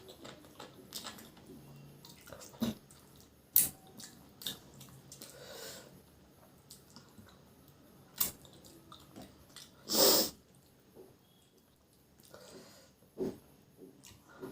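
Close-miked eating sounds: chewing and lip smacks with several sharp clicks, and one louder brief burst about ten seconds in.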